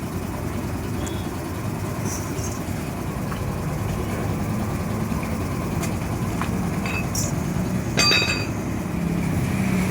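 Steady low rumble of vehicle noise, with a few light clicks and one sharp clink with a brief ring about eight seconds in.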